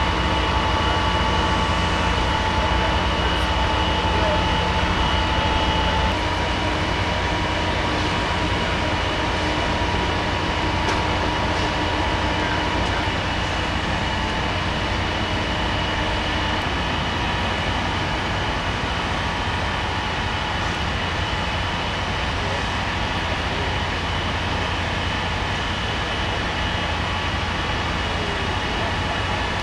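Steady drone of fire appliances' engines and pumps running hard to supply the water jets, with a few steady whine tones over it. It drops a little about six seconds in.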